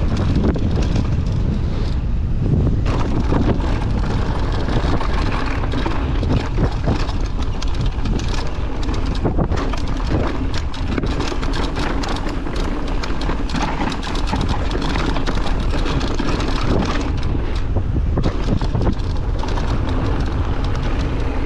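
Bike being ridden with wind buffeting the microphone over a steady run of rattles and clicks from the bike, noises that come after a long season of riding.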